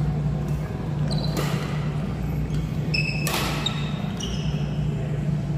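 Badminton rally: two sharp racket strikes on the shuttlecock about two seconds apart, the second louder, with short high squeaks of court shoes on the floor over a steady low hum.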